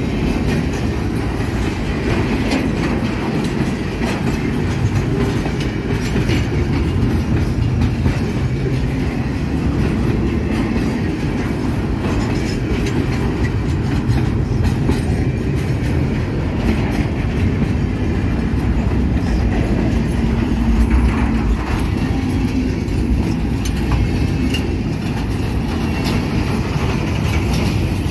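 Loaded container flatcars of a long freight train rolling past close by: a steady rumble of steel wheels on the rails, with many clicks and clanks of the wheels over the rail joints.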